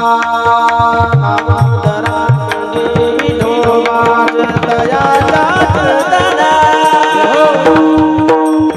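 Marathi varkari kirtan music: a hand drum playing low strokes that slide down in pitch over a steady drone, with sharp clicks keeping time. From about three seconds in a singer's ornamented, wavering melody comes in over the accompaniment.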